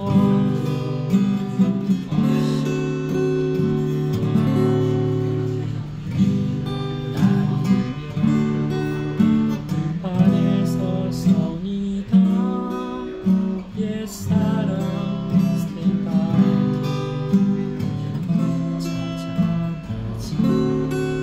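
Steel-string acoustic guitar being played, its chords ringing out and changing every second or two.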